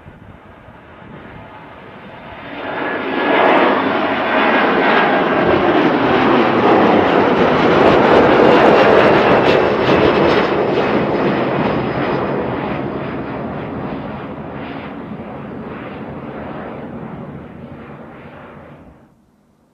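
Jet engines of a Boeing 737 airliner at takeoff thrust as it climbs out after lifting off, growing louder over the first few seconds, loudest as it passes, then slowly fading as it climbs away. The sound cuts off suddenly near the end.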